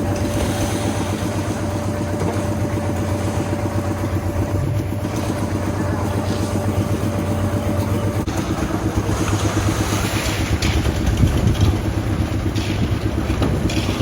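A machine engine running steadily, with a higher steady hum alongside it that stops about eight seconds in.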